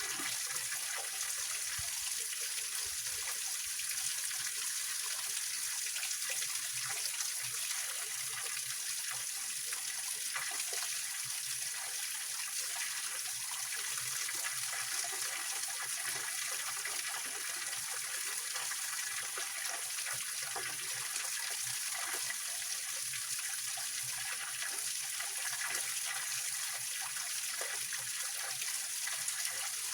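Small waterfall of a mountain stream splashing and trickling over rocks, a steady, even rush of water.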